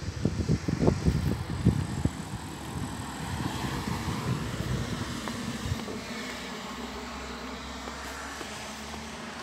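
Wind buffeting the phone's microphone for the first couple of seconds, then a car passing on the street, its noise swelling and fading in the middle and leaving a steady low hum.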